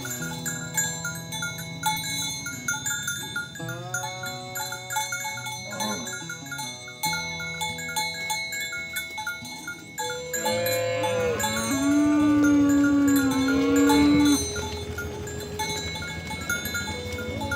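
Cattle mooing over cowbells clanking. There are two long moos, and the second, about ten seconds in, is the louder.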